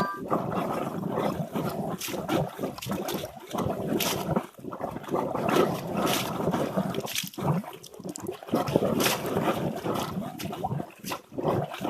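Water splashing and gurgling in an irregular, uneven stream of small splashes.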